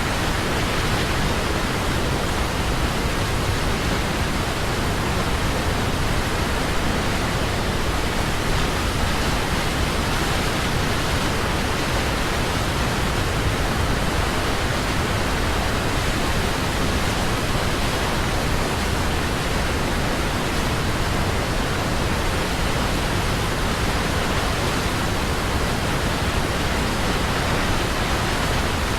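Glanni waterfall on the Norðurá river rushing, a loud, steady roar of falling water.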